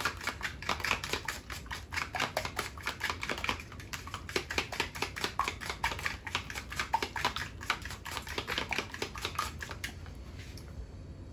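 A metal utensil whisking egg wash in a plastic container: a quick, uneven run of clicks and taps against the container that stops about ten seconds in.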